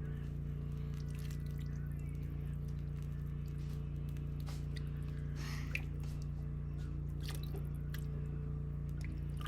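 Faint clicks and scrapes of a spoon stirring pasta and chili in a pot, over a steady low hum.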